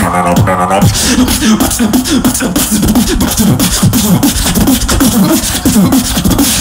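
Solo beatboxing: a held, pitched vocal tone for about the first second, then a fast run of kick, snare and click sounds laced with short sliding bass notes.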